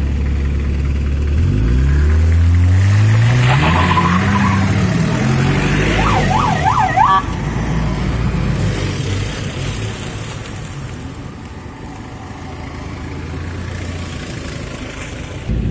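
A vehicle engine revving: its pitch climbs for a few seconds, then drops back and it runs on steadily. About six seconds in, a short tone sweeps rapidly up and down over it, like a siren.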